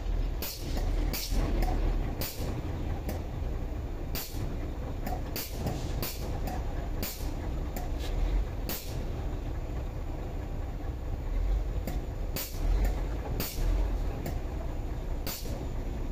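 A hose-fed grease gun being worked on the lowbed trailer's suspension grease fittings, giving short hissing, clicking bursts at uneven intervals, about fifteen in all. Under it runs a steady low rumble.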